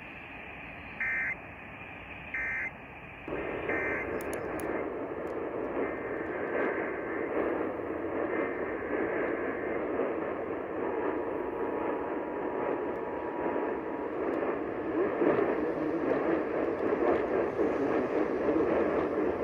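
Emergency Alert System end-of-message signal over radio: three short bursts of warbling two-tone data about a second apart, then steady radio hiss.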